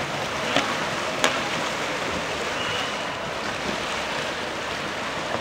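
Steady rush of water churned up by kayak paddles and hulls during kayak polo, with two sharp knocks about half a second and just over a second in.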